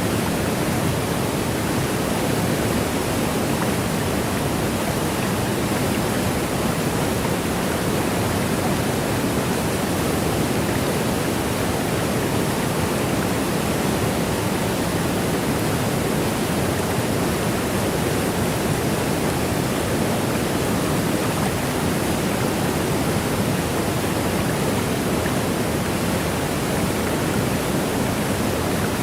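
Steady, unbroken rush of a waterfall: a deep, even hiss of falling water that does not change.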